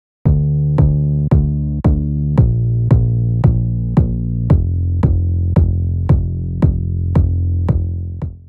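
Electronic background music with a steady beat of sharp drum-machine hits, about two a second, over sustained low bass notes that step down twice. It starts abruptly and fades near the end.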